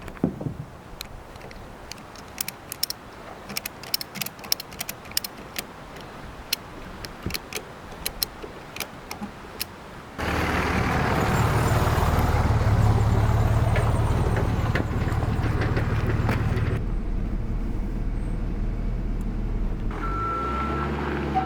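A scattered run of sharp clicks and knocks, then about halfway through a heavy vehicle's engine starts suddenly and runs steadily. Near the end a reversing alarm begins beeping.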